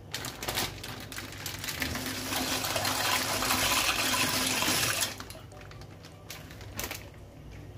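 Dry penne pasta pouring from a plastic bag into a pot of hot water, a rushing, rattling splash lasting about five seconds that cuts off suddenly. Quieter water and a few light knocks follow.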